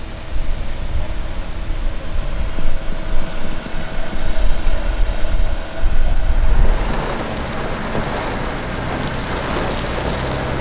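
Gust-front wind from a severe thunderstorm buffeting the microphone in a gusty low rumble. About two-thirds of the way through, a steady hiss of heavy rain sets in.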